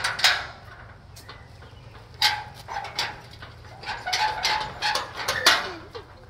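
Metal gate's sliding bolt latch rattled and knocked by hand, a few sharp metallic clicks and clanks, as the locked gate is tried. Short animal calls sound between the knocks.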